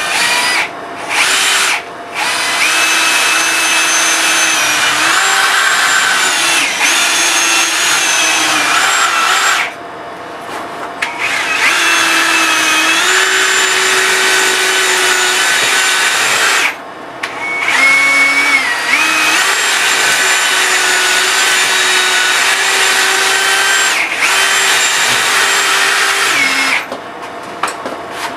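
Cordless drill with a small bit boring out the old wedge in an axe head's eye: the motor whines in several long runs with short stops, including about 10 and 17 seconds in, its pitch stepping up and down as the bit bites and frees.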